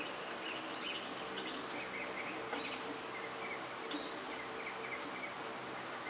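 Steady low background noise with a faint hum, and scattered faint short high chirps like distant birds.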